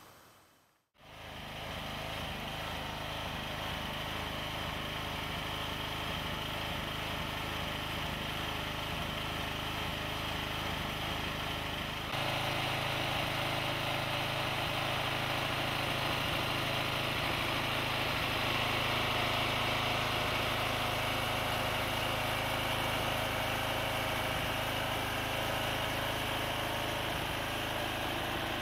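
A 5 hp lawnmower engine running steadily on wood gas while driving a 12-volt alternator. The engine sound gets louder about twelve seconds in.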